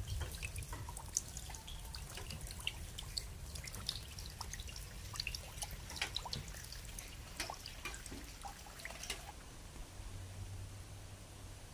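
Rainwater dripping in scattered, irregular drops over a low steady rumble; the drips stop about nine seconds in, leaving a faint low hum.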